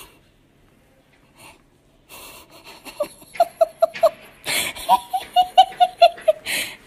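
A person laughing hard after a near-silent start: two runs of quick, high 'ha-ha-ha' bursts, with wheezy gasping breaths between them.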